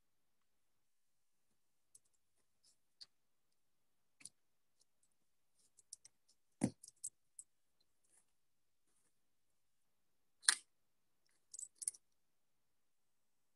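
Scattered small clicks and taps with near silence between them. The two loudest come about six and a half and ten and a half seconds in, and a quick cluster of clicks follows near the end.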